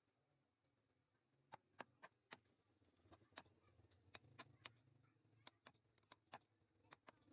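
Steel chisel cutting a rectangular mortise into a turned wooden bed leg: a string of sharp, light taps and clicks, irregular at about two a second, starting about a second and a half in.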